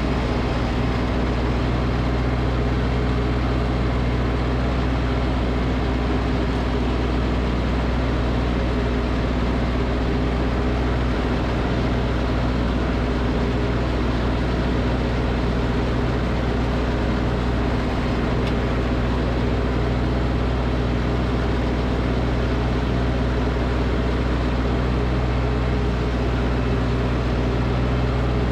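Snowblower engine running at a steady speed throughout.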